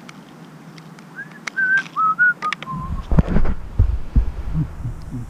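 A brushless ESC startup melody, played through the 2205 drone motors that drive a small RC car: a run of short beeps stepping down in pitch, the sign that the ESCs have powered up. Then low thumps and rumbling.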